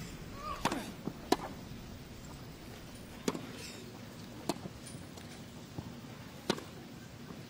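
Tennis ball struck by rackets in a rally that opens with a serve: about five sharp pops, spaced one to two seconds apart.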